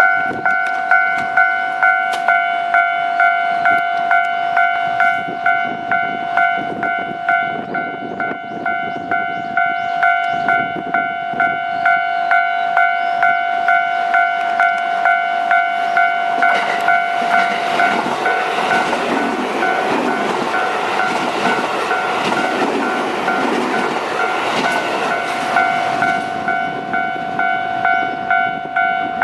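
Japanese level-crossing warning bell ringing in a steady clang, about two strikes a second. A JR West 281-series Haruka limited express rushes through the crossing from about 16 to 26 seconds in, its wheel and running noise swelling over the bell and then fading.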